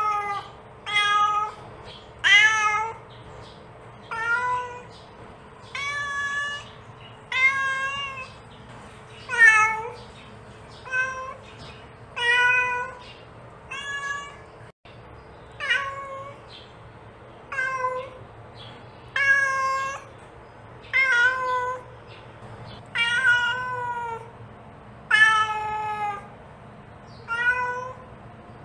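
Mother cat meowing over and over, calling her kittens: a long run of short, pitched meows, about one every second and a half.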